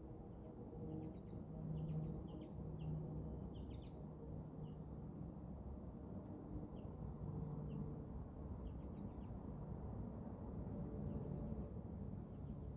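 Small birds chirping in short scattered calls, with a few brief trills, over a steady low rumble.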